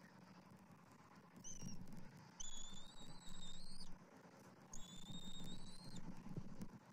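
Bald eagle calling in high, thin whistled notes: a short one, then two drawn-out notes of about a second and a half each that rise slightly in pitch, over a faint low rumble.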